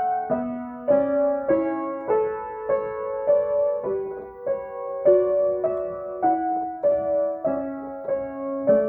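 Acoustic piano improvisation: a slow, gentle line of notes struck at an even pace, about one every half second or so, in the middle register over lower notes left to ring.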